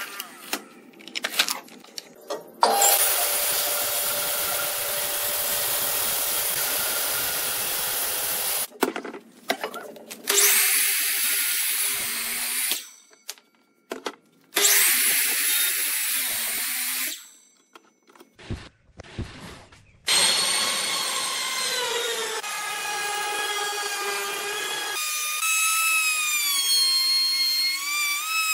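Electric power tools working wood in several runs of a few seconds each, with short pauses between. In the last, longest run the tool's whine wavers up and down in pitch.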